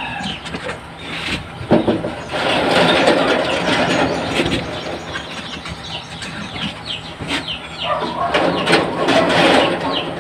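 Duck eggs clicking and knocking against one another and the wooden incubator tray as they are set in by hand, over a noisy background that swells twice.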